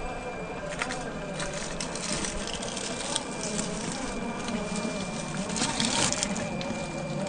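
Scale RC rock crawler on a Vanquish VS4-10 chassis climbing loose rock: its small electric motor and geared drivetrain whine, rising and falling with the throttle, over crunching and clattering of rocks under the tyres, busiest about six seconds in.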